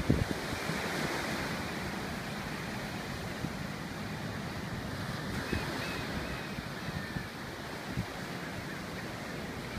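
Sea surf washing in steadily, with wind gusting across the microphone in short low thumps, the strongest just after the start.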